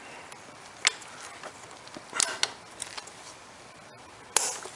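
A few faint, scattered plastic clicks and taps from gloved fingers working the locking tab of an ignition coil's electrical connector, with a sharper click near the end.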